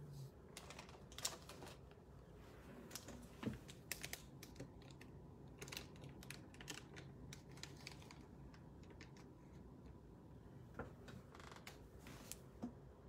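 Quiet, irregular clicking of typing on a computer keyboard.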